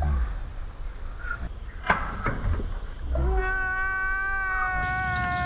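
A few sharp clicks and knocks from a socket wrench on a scooter's oil drain plug. About three seconds in, a comedy sound effect of a long, high-pitched wailing cry starts, rises briefly and then holds one note.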